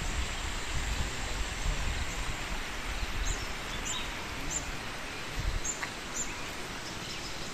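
Steady outdoor hiss with a few short, high bird chirps repeated about every half second midway through.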